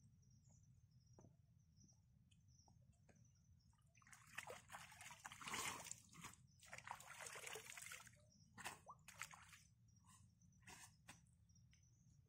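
Water sloshing and splashing: about four seconds of continuous sloshing starting a third of the way in, then a few short separate splashes.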